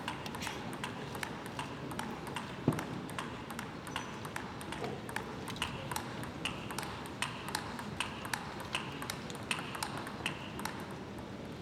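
Table tennis ball clicking back and forth off bats and table in a long, steady rally, a hit about every half second, the table bounces ringing briefly and high.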